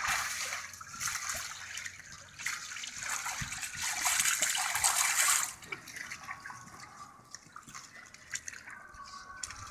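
Pool water sloshing and splashing under an inflatable water-walking ball as a child crawls inside it, loudest about four to five seconds in, then settling to small drips and ticks.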